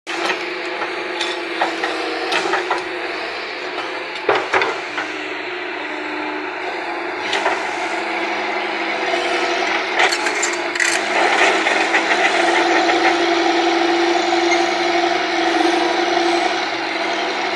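Diesel earthmoving machine working, its engine and hydraulics running steadily with a held whine, broken by scattered knocks and rattles.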